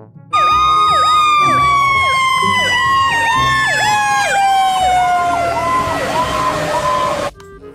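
Fire truck sirens: one long wail slowly falling in pitch, with a fast yelping siren cycling about twice a second over it. It cuts off suddenly near the end.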